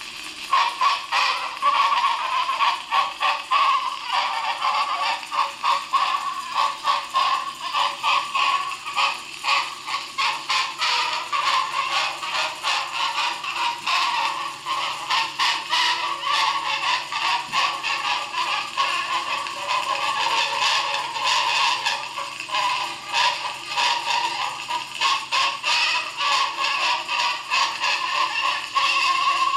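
A Columbia AQ cylinder phonograph playing a jazz dance-band record through its acoustic horn. The sound is thin and tinny with almost no bass, and it carries a steady beat.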